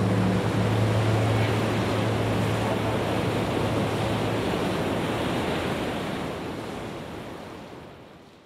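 Steady rushing noise with a low hum that stops about halfway through; the whole sound fades out near the end.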